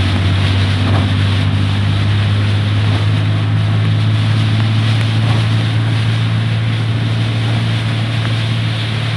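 Heavy rain and strong wind, a steady rushing noise, over a constant low engine drone.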